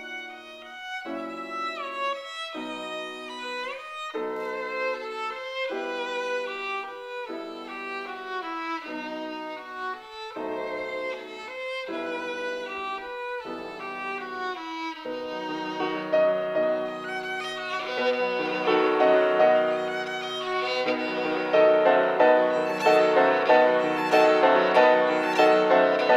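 Violin played with piano accompaniment: separate held notes with a couple of upward slides, turning louder and busier a little past halfway.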